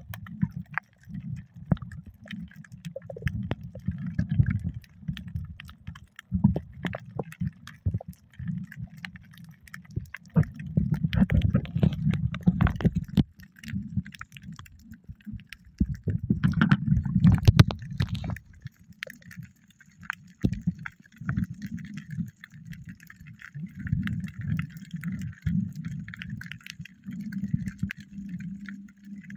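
Muffled water movement and bubbling in uneven low surges, scattered with sharp clicks and crackles, as heard by a camera under water while snorkeling.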